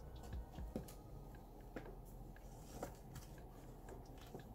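Faint rustling and light clicks of cash-budget binder handling: Australian polymer banknotes slid into a plastic pocket, then the binder's plastic cover closed over the rings.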